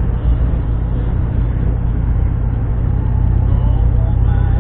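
A car driving along a road, heard from inside the cabin: a steady low rumble of engine and tyre noise that grows slightly louder.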